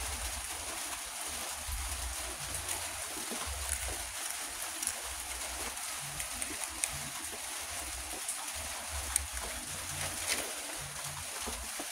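Steady background hiss with a low rumble that comes and goes, and a few light clicks as a small diecast toy car is handled.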